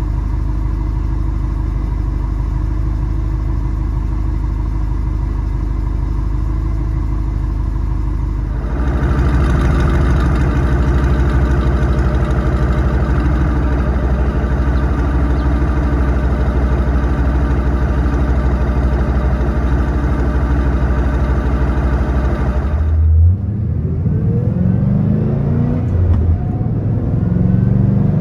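Exhaust of a Ford Mustang GT's 4.6-litre three-valve V8, breathing through long-tube headers, an off-road H-pipe and aftermarket axle-back mufflers. It runs steadily, then about nine seconds in it steps up and is held at higher revs. Near the end it drops back and rises in pitch several times.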